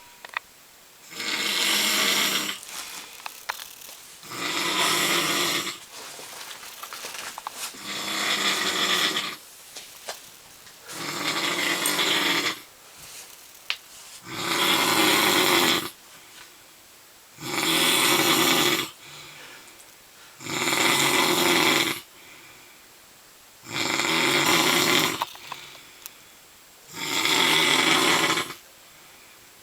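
A man snoring loudly in deep sleep: nine rasping snores of about a second and a half each, coming regularly every three seconds or so, with faint breathing between them.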